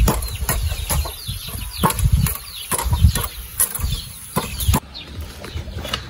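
Quick sharp taps of a steel cleaver striking, two to three a second, with chickens clucking in the background; the tapping stops about three-quarters of the way through.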